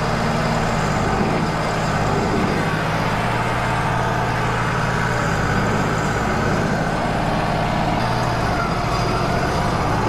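Wood-Mizer LT35 band sawmill's engine running steadily, with no change in load.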